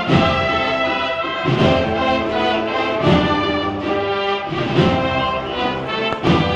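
Brass band playing a slow processional march, held brass chords with a heavy drum-and-cymbal stroke about every second and a half.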